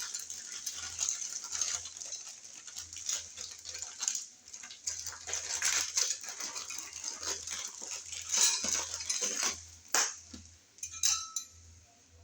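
Small hard parts being handled: irregular light clicks, clinks and rustling, with a few louder clacks about eight and ten seconds in.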